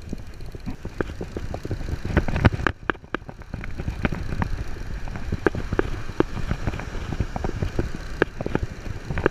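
Conventional surf-fishing reel being cranked, giving a rapid, irregular run of mechanical clicks and knocks over low wind rumble on the microphone.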